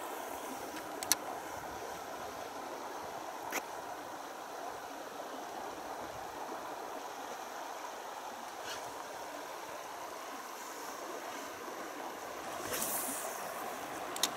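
River water running steadily with a soft, even rushing, broken by a few faint clicks and a brief swish near the end.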